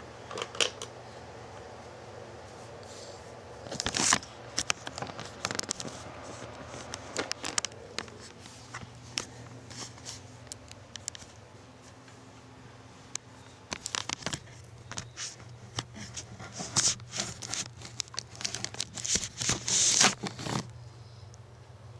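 Irregular crinkling and rustling with sharp clicks, the sound of things and the camera being handled close to the microphone, in clusters about four seconds in and again through the second half, over a steady low hum.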